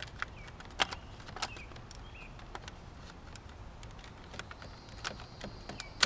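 Scattered sharp clicks and small taps from channel-lock pliers squeezing the plastic wing clips out of a power door lock switch, the loudest about a second in and again about half a second later.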